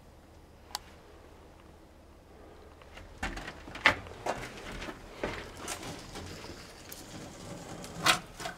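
Irregular footsteps and clunks on the steel floor and fittings inside an old electric locomotive's body, starting about three seconds in, with one sharp click shortly before.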